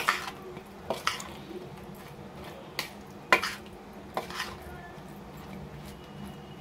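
A spoon stirring thick, oily spice masala and jackfruit chunks in a ceramic dish, with several sharp clinks of the spoon against the dish at irregular moments and soft squelching of the mixture between them.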